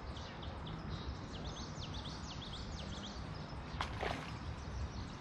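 Birds chirping in a rapid run of short, falling high notes over steady low outdoor background noise, with one brief sharp sound about four seconds in.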